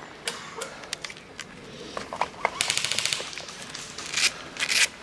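Airsoft rifle firing a short full-auto burst of rapid clicks, about 15 shots a second, halfway through, among scattered single shots, with two louder sharp cracks near the end.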